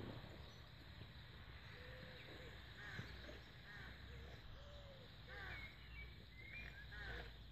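Faint birds calling: short chirping notes scattered through, over a low steady background rumble.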